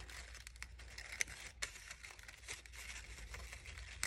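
Paper flower petals being handled and pressed down by hand: faint rustling and crinkling of paper with scattered small clicks, two slightly sharper ticks a little over a second in.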